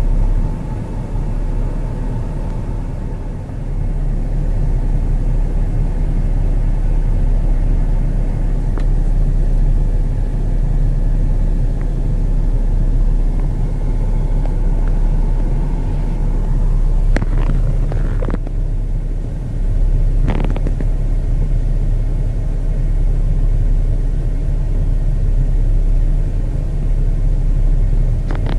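Steady low rumble of heavy truck engines, with a few short sharp knocks or clicks in the second half.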